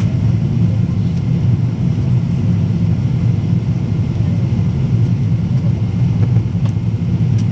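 Steady low rumble of a Boeing 777-200ER cabin in flight: engine and airflow noise.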